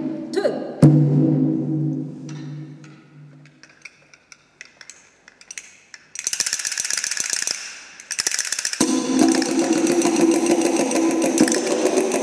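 A single conga stroke rings out low and dies away over a few seconds, followed by a few light scattered taps. About six seconds in a fast, dense rattling starts, and from about nine seconds a steady buzzing tone runs with it.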